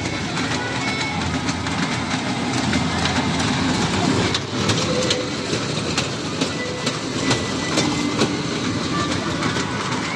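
Miniature fairground ride-on train rolling around its circular track, its wheels clicking irregularly over the rail joints under a steady rumble.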